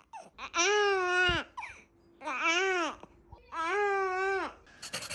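Newborn baby crying: three wails of just under a second each, with short pauses between them, then a brief rustle near the end.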